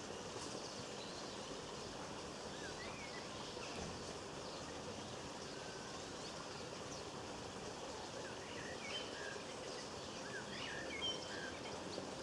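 Small garden birds chirping and calling in short, high notes, busiest in the last few seconds, over a steady background hiss.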